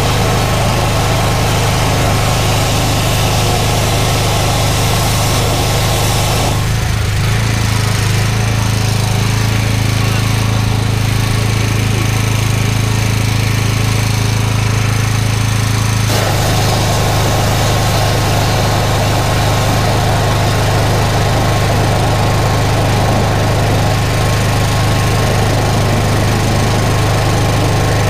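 Drain-jetting machine's engine running steadily under load. About six seconds in, the rougher noise over the hum drops away for some nine seconds, leaving a smoother, even engine note, and then it comes back.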